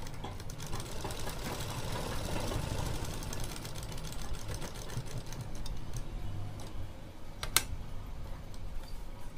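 Usha sewing machine running steadily, its needle stitching through an elastic waistband in a rapid, even patter, with one sharp click near the end.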